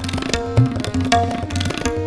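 Tabla playing a fast rela passage: dense, rapid dayan strokes over deep bayan bass strokes, one bending up in pitch about half a second in. Harmonium holds sustained notes underneath as the lehra.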